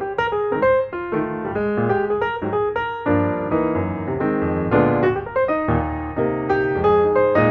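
Background piano music: a keyboard melody over chords, with notes struck in quick succession.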